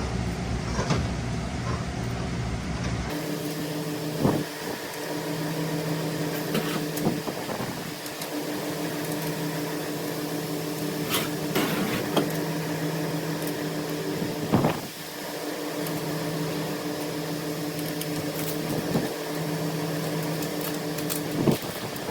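A steady machine hum with a few scattered metallic clinks and knocks. The hum has a lower rumble for the first few seconds, then settles into a higher, even drone that pulses on and off every couple of seconds.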